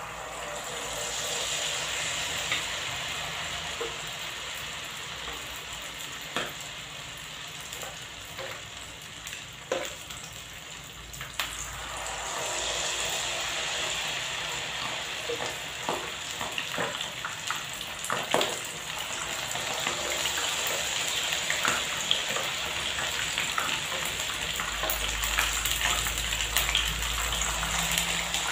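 Battered squid rings deep-frying in hot oil in a frying pan: a steady sizzle with crackling pops, growing louder about halfway through as more battered rings go into the oil.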